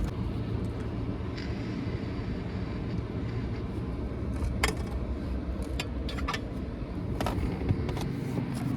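Steady low machinery hum, with scattered light clicks and knocks over it.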